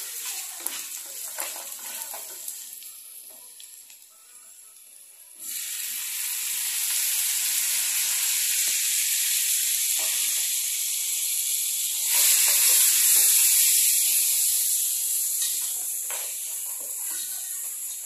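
Beef and onions sizzling in a hot non-stick pan, stirred with a wooden spoon. About five seconds in the sizzle jumps up loud as chopped tomatoes go into the pan, grows louder again about twelve seconds in, then eases off.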